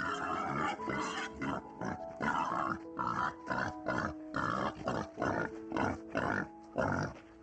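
Wild boar grunting in a quick series of short, rough grunts, about two a second, over soft background music.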